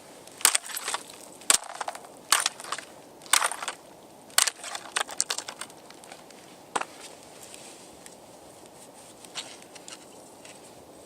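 Thin ice cracking and crunching: a series of sharp, irregular cracks with a short ring, about six loud ones in the first seven seconds, then only faint ticks.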